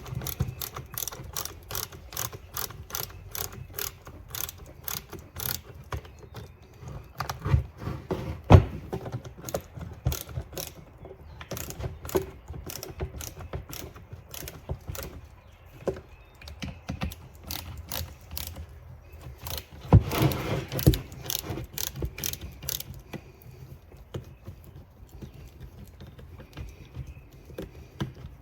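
Hand tool clicking in quick regular runs, about three clicks a second, as screws are tightened into a chainsaw's replacement handlebar. A few louder knocks come about 8 seconds in and again around 20 seconds.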